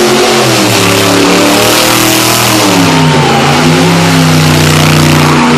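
Car doing a burnout: the engine revs high, its pitch rising and falling and then holding, over a loud steady hiss of spinning tyres.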